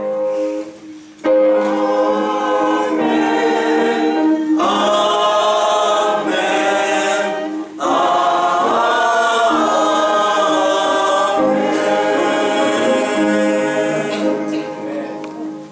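Church singing: voices hold long, wavering notes in a slow sung response. The singing breaks briefly about a second in and again near eight seconds.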